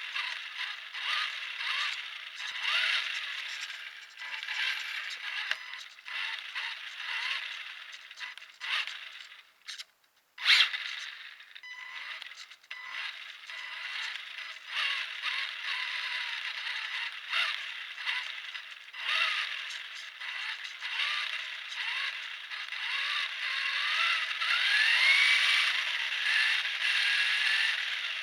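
Kyosho Javelin radio-controlled buggy driving: its gears and chassis rattling and scraping in an uneven, constantly changing clatter. The sound drops out briefly about a third of the way in and comes back with a sharp click, and near the end a whine rises and falls.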